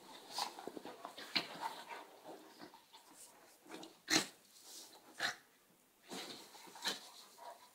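Two dogs play-fighting, a Czechoslovakian wolfdog mouthing a border collie puppy, with several short sharp dog sounds about a second or two apart, the loudest about four seconds in.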